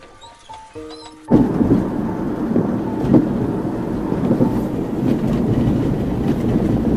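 Inside a Mercedes Vito van on the move: a steady low rumble of engine, tyres and wind in the cabin, cutting in abruptly about a second in after a few soft musical notes.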